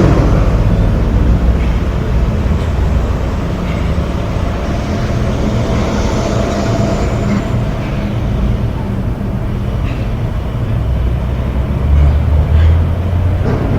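Steady low rumble with a noisy hiss above it and a few faint clicks, swelling briefly about twelve seconds in.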